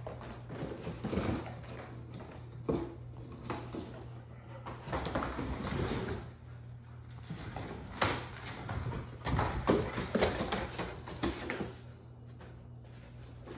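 Two puppies playing and wrestling on cardboard laid over a concrete floor: irregular scuffling, rustling and crumpling of cardboard, and claws scrabbling, with a few sharp knocks. A steady low hum runs underneath.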